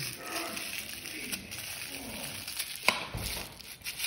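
Rustling of small plastic toy packaging being handled and unwrapped, with one sharp click about three seconds in.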